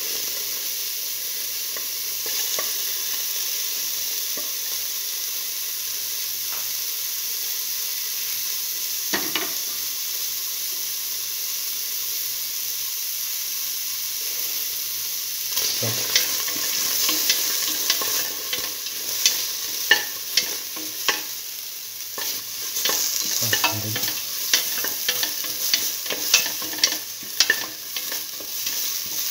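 Sliced onion sizzling in hot oil in a stainless steel pan, a steady hiss. From about halfway on, the sizzle grows louder and is broken by many sharp clicks and scrapes as the onions are stirred around the pan.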